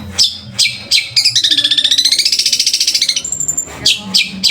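Long-tailed shrike (cendet) singing in a loud, varied song: a few sharp calls, then a fast rattling trill of rapid notes lasting about two seconds, a short high thin whistle, and more sharp calls near the end.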